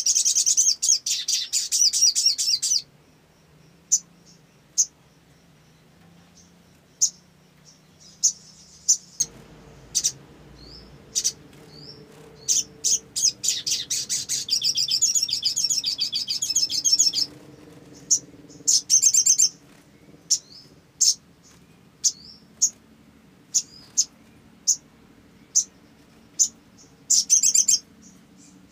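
Male olive-backed sunbird singing: rapid, high-pitched trilled phrases a few seconds long at the start, in the middle and near the end, with single sharp chip notes and a few short rising whistles between them.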